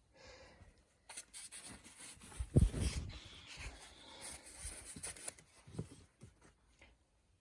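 Linen fabric rustling and rubbing as the bento bag is handled, with scattered small clicks and one louder low thump about two and a half seconds in.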